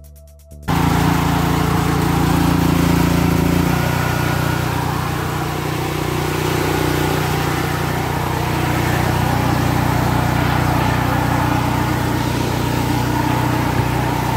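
Portable gasoline generator's small engine, cold-started on full choke, running steadily. The engine sound comes in suddenly under a second in, and its note shifts slightly about four seconds in.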